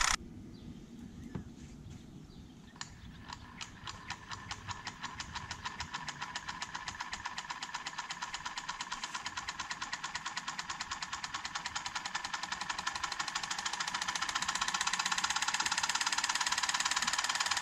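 3D-printed high-voltage DC motor starting up about three seconds in: slow, separate clicks that quicken into a fast, even pulsing and grow steadily louder as the motor spins up.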